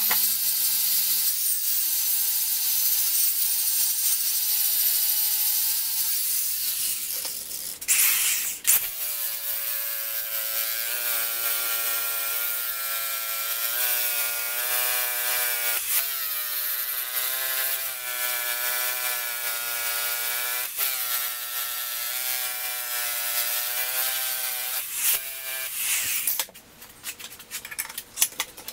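A small angle grinder's wheel grinds a steel plate, with a hissing rush for the first several seconds; the wheel is worn out. After a short break about eight seconds in, a big 9-inch disk sander grinds the same steel. Its motor whine sags and recovers again and again as it is pressed into the work, and it stops a couple of seconds before the end.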